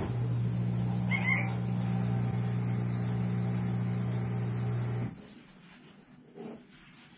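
A loud, steady machine hum starts abruptly and cuts off after about five seconds. About a second in, a puppy gives one brief high yelp over it.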